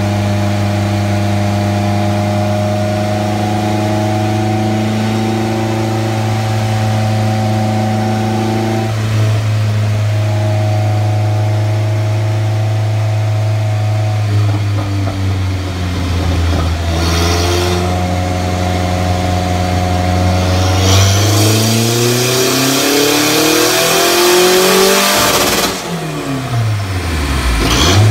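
Turbocharged KA24DET 2.4-litre four-cylinder in a Nissan 240SX running on a chassis dyno. It holds a steady speed for about fourteen seconds, then climbs steadily in pitch through a full dyno pull, growing harsher and hissier near the top. Near the end it drops off suddenly and winds down.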